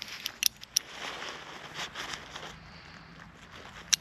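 A carabiner being handled, with light rustling and a couple of small clicks early in. A sharp metallic click near the end as its spring gate snaps shut on a hammock strap loop.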